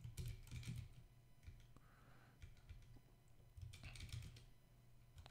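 Faint typing on a computer keyboard: short runs of keystrokes with pauses between them.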